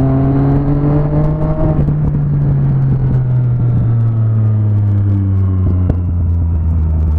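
Motorcycle engine running while riding along a street, a steady drone that rises slightly at first and then falls slowly in pitch as the bike eases off and slows, with wind noise over it.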